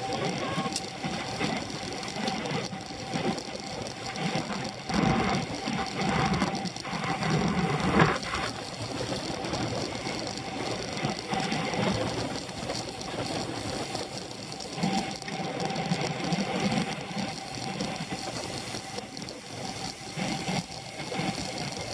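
Road racing bicycles ridden in a pack: wind rushing over the microphone and tyre noise, with the rapid mechanical ticking of bicycle drivetrains and freewheels. It swells in surges a few seconds in and again past the middle.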